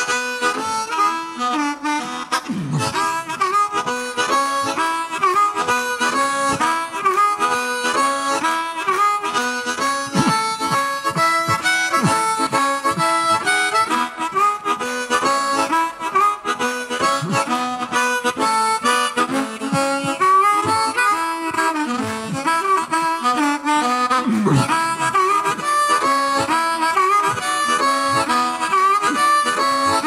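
Amplified blues harmonica, cupped in the hands against a microphone, playing a fast rhythmic pattern of chords and notes. A few bent notes slide down in pitch along the way.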